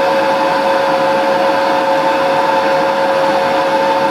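Propane-air burner flame in a drilled pipe, roaring steadily with a steady two-tone whistle over it; the whistle may come from the flame going through the holes. The air is turned up and the propane turned down, which tightens the flame.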